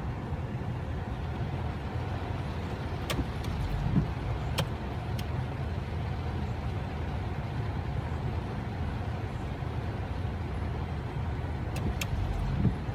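Steady low rumble of a car's road and engine noise, with a few sharp clicks in two clusters, a few seconds in and again near the end.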